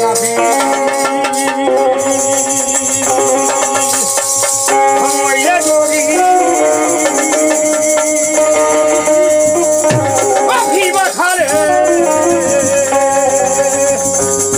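Bhojpuri folk music: a harmonium playing a steady melody over a dholak drum, with the constant jingling rattle of hand percussion. A man's voice sings briefly about two-thirds of the way through.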